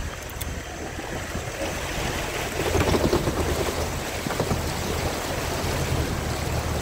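Water rushing and splashing in a steady noisy wash, a little louder around the middle.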